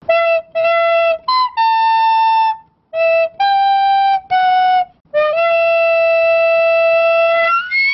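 Intro jingle played as a solo flute-like melody: about eight short separate notes, then one long held note of about two seconds that bends upward near the end.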